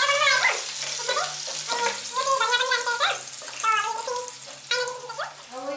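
Goat meat bhutun frying and sizzling in a pan as it is stirred. Short, high-pitched wavering sounds come and go over the sizzle.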